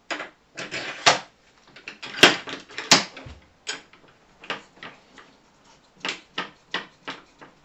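Handling noises on a workbench: a string of irregular clicks and knocks, the sharpest about one, two and three seconds in, then softer ones, as the aluminium saw track and fence parts are moved and set.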